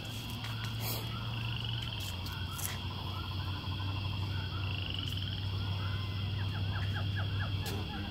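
Outdoor background of many small animal chirps and calls over a steady high buzz, with two short rising trills and a low steady hum. A few faint clicks are scattered through it.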